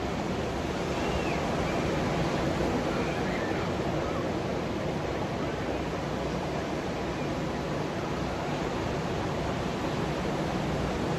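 Ocean surf breaking on a beach: a steady, unbroken rush of waves.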